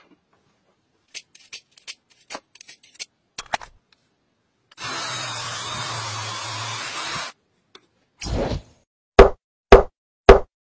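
Light metallic clicks as a threading die is handled, then a steady grinding whir of about two and a half seconds as a wooden dowel is cut through the die, throwing off shavings. Near the end comes a run of sharp knocks, the last three the loudest.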